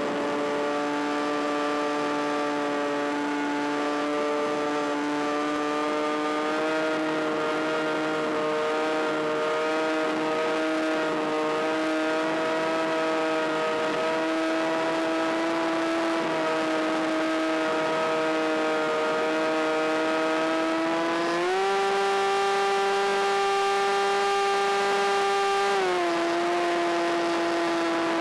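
RC plane's motor and propeller whining steadily in flight, heard close up from the onboard camera, with wind rush underneath. About 21 seconds in, the pitch steps up as the throttle is opened, holds for about four seconds, then drops back.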